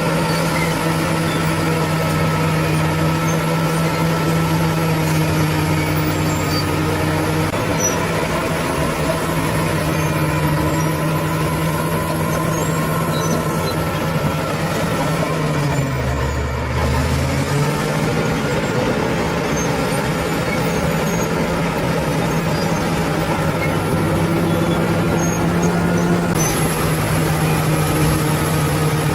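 Bulldozer's diesel engine running steadily under work. About halfway through, its pitch sags for a second or so, as if lugging under load, then climbs back up.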